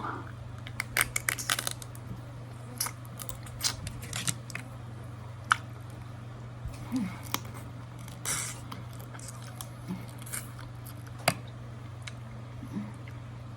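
Crab shells being cracked and picked apart while eating: a couple of dozen sharp, irregular clicks and cracks, over a steady low hum.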